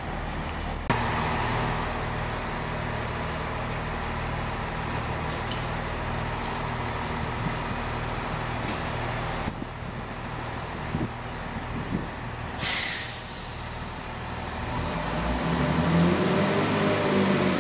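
Chiltern Railways diesel multiple unit standing at the platform with its engine idling, then a short, loud hiss of air from the brakes about twelve seconds in. Near the end the engine note rises as the train pulls away.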